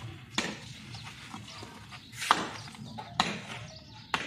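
A long-handled digging tool struck into the base of an old brick-and-mud wall: four sharp, unevenly spaced blows, with scraping of earth and crumbling brick between them.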